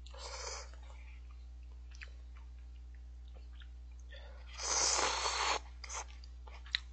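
A person slurping cup ramen noodles off chopsticks: a short slurp right at the start and a longer, louder one about four and a half seconds in, with a few small clicks between and after.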